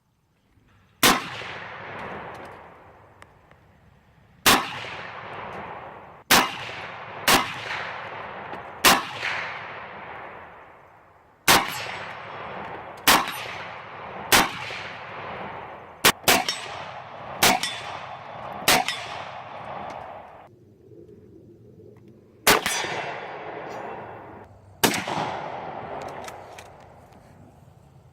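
Gunshots fired one after another, about fourteen in all, some less than a second apart and others a couple of seconds apart, each trailing off in a long echo, with a pause of about two seconds past the middle.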